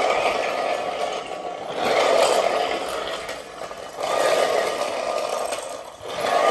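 Caster wheels of vehicle dollies rolling and rattling on a shop floor under a car being pushed, the noise swelling and easing about every two seconds.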